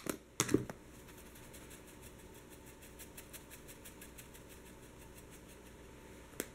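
Pepper grinder being twisted over cubed raw beef: a long run of faint, rapid, even clicks, after a couple of louder knocks as it is picked up.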